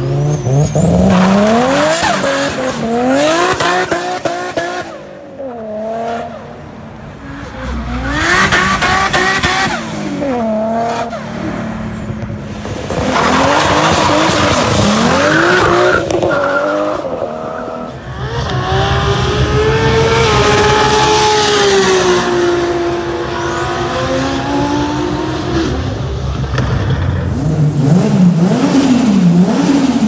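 High-performance car engines revving hard and dropping back in a series of short clips, with spinning tyres squealing during skids and burnouts, including a Nissan Skyline sedan doing a smoky burnout. In the longest stretch the engine is held at high revs over the hiss of spinning tyres, and there are sharp rev blips near the end.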